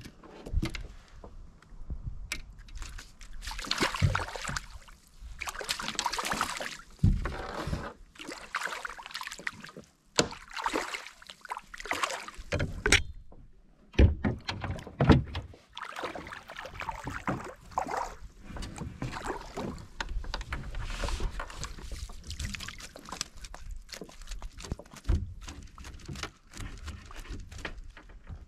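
Handling noise in a fishing kayak: irregular bumps, rustles and several sharp knocks as gear and a landing net are moved about and knocked against the hull.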